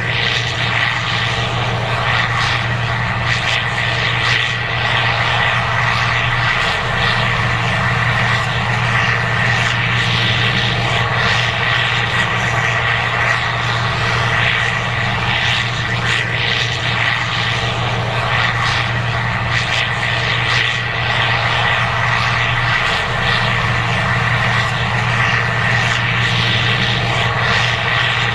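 Case IH 2188 Axial-Flow combine running steadily under harvesting load: a constant diesel drone with a steady high whine over it.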